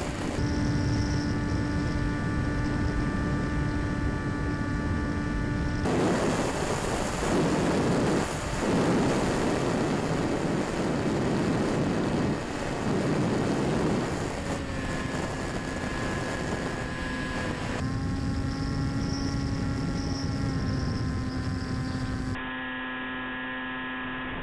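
Electric motor and pusher propeller of a Quanum Observer FPV plane droning at a steady pitch, heard from the onboard camera, with wind rushing over the airframe. In the middle the rush of wind takes over for several seconds and the drone fades, then returns a little lower; near the end the sound turns duller.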